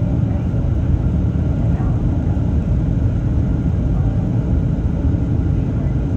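Steady low rumble inside the cabin of a Boeing 737-800 airliner in flight: engine and airflow noise heard through the fuselage.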